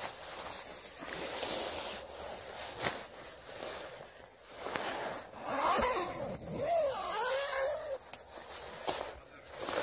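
Nylon tent door rustling and a tent zipper being drawn, in several short swishes. Midway through, a wavering, whistle-like call rises and falls for about two seconds, and a sharp click comes near the end.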